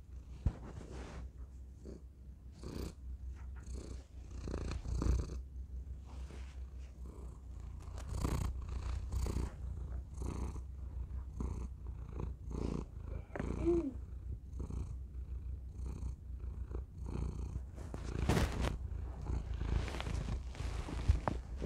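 Orange long-haired domestic cat purring into a tiny microphone held against its face: a steady low rumble with rasping pulses about once a second.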